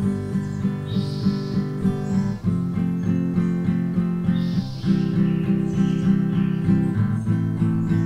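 Background music: acoustic guitar picking chords in a steady, even rhythm, changing chord every couple of seconds.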